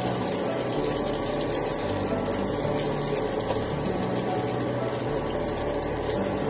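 Hotdogs simmering in a shallow layer of water in a nonstick pan, a steady bubbling crackle.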